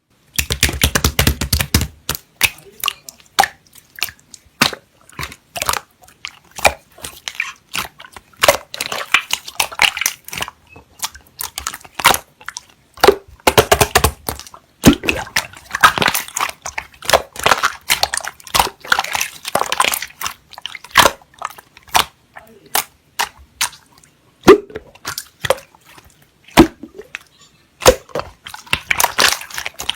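Pearl slime being squished, pressed and pulled by hand, making many sticky clicks, pops and crackles in irregular bursts.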